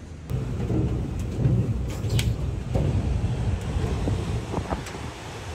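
Wind buffeting the microphone outdoors: an uneven low rumble, with a few faint clicks.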